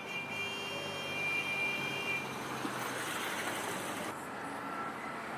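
Street traffic, with a bus and a three-wheeled motorcycle taxi passing close by. A high steady whine sounds for about the first two seconds, and the noise swells about three seconds in as a vehicle goes by.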